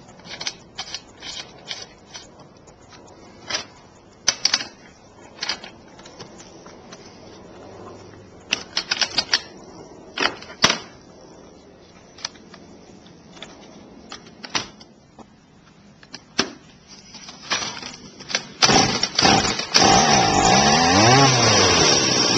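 Scattered clicks and clatter of hands working on a Stihl chainsaw as the cleaned spark plug is threaded back in. Near the end the saw's two-stroke engine catches and runs, its pitch rising and falling as the throttle is worked: it fires again now that the carbon-fouled plug has been burned clean.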